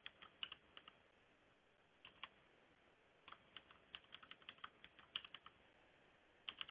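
Faint typing on a computer keyboard as a password is entered: short runs of quick keystrokes, with a pause of about two seconds partway through.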